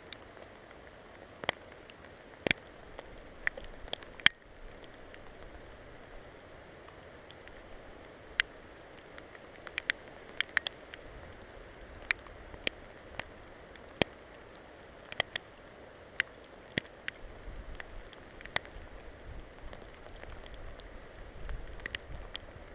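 Rain or wet snow-melt dripping: irregular sharp taps of single drops close to the microphone, over a steady hiss.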